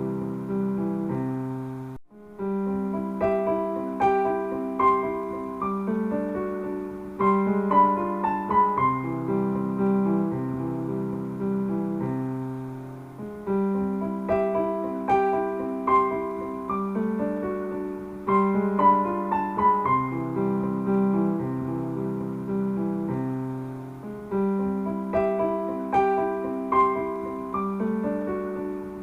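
Background piano music: a gentle, repeating melody over steady chords, with a brief gap about two seconds in where the track restarts.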